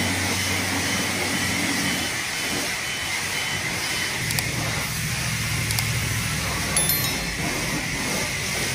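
Self-service car wash spray wand spraying steadily with a loud hiss, over a low hum.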